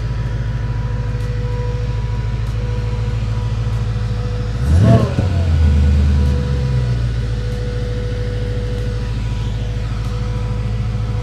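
Whipple-supercharged 5.0-litre V8 of a 2023 Shelby Mustang Centennial Edition idling steadily. About five seconds in it is blipped once, with a quick rise and fall in revs, then settles back to idle.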